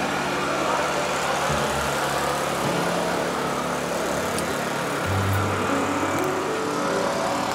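A car engine running steadily, with music underneath.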